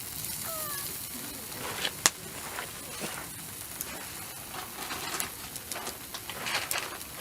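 Campfire crackling over a steady hiss, with scattered small pops and one sharp, loud pop about two seconds in.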